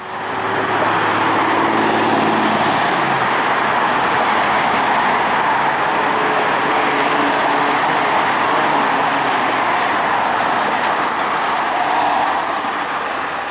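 Road traffic passing close by: cars and a van driving past, a steady rush of tyre and engine noise. A faint high-pitched whine is heard in the last few seconds.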